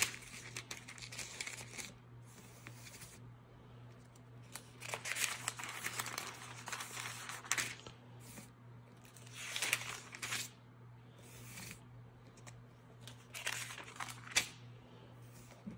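Thin Bible-paper pages turned by hand, a series of soft rustling swishes with quiet gaps between, ending in a sharper flick near the end. A faint steady low hum lies underneath.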